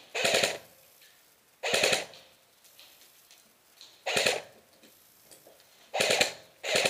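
Airsoft electric rifle firing short automatic bursts, each a rapid clatter of shots about half a second long. Four bursts, irregularly spaced, with a fifth starting at the very end.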